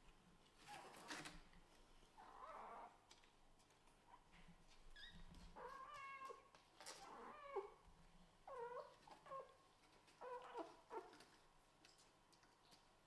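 Kittens mewing: a series of short, high, wavering mews, about five, from about halfway through. Before them come soft scuffling noises.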